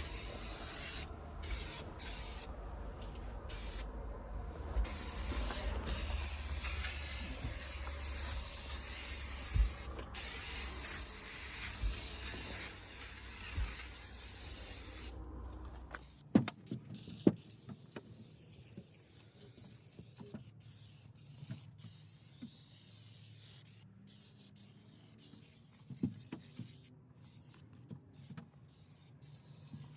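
Insecticide sprayer hissing during a bed bug treatment: several short bursts, then a long, nearly continuous spray that cuts off about halfway through. After that, only faint clicks and handling noises.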